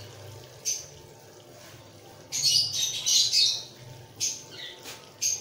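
Birds chirping in short bursts: one brief chirp, then a run of chirps lasting about a second, then a few more single chirps near the end.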